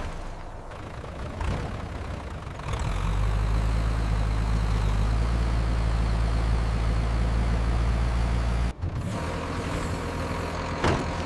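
A heavy engine running with a steady low hum that comes in about three seconds in. It drops out suddenly near nine seconds and carries on more quietly.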